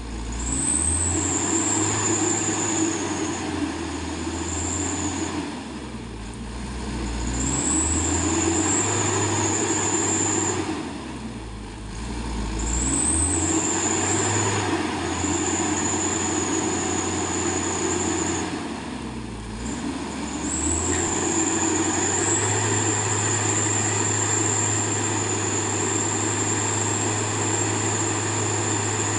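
Heavy truck engine under load, revving up, dropping off and building again about four times before holding steady, with a high whine over it.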